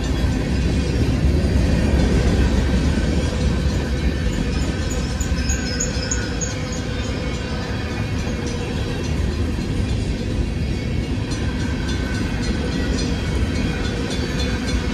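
Freight cars of a long CSX manifest train rolling past, a steady rumble of steel wheels on the rails.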